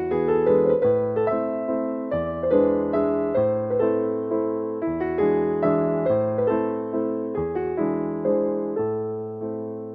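Background music: a gentle piano melody with chords, notes struck and left to ring, in a slow, even rhythm.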